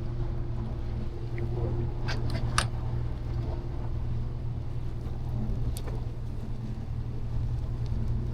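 Charter boat's engine running steadily, a low even hum, with a few light clicks about two seconds in and once more near six seconds.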